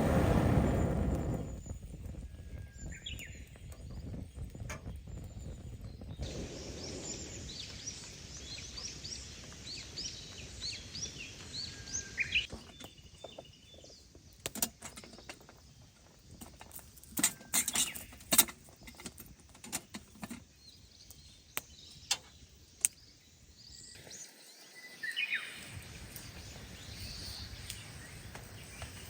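Birds chirping, short calls and quick pitch glides, over a steady outdoor background hiss. A brief louder rush of noise opens it, and a run of sharp clicks and knocks comes through the middle.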